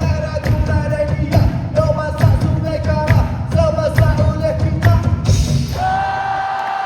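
Live concert music: a singer over a band with a steady low beat. Near the end a single note is held long.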